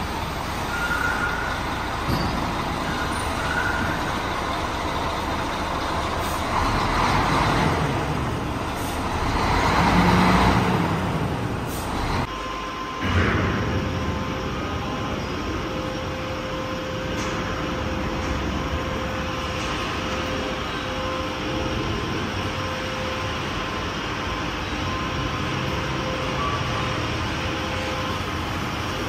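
Steady heavy-machinery noise in a large workshop hall, as a drilling rig is craned onto a truck. The noise swells twice in the first half and drops out briefly about twelve seconds in. After that it runs on with a faint steady whine.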